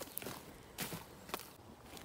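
Pigs' hooves stepping on dry ground: a few faint, irregular footfalls, about four in two seconds.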